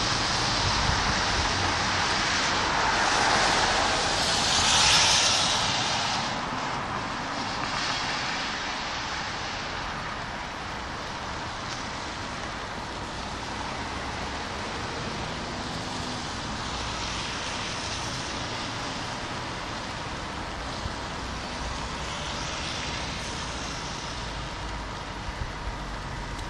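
Cars passing on a rain-soaked road, their tyres hissing on the wet asphalt; the loudest pass swells and fades about five seconds in, and a fainter one comes near the end, over a steady hiss of rain and distant traffic.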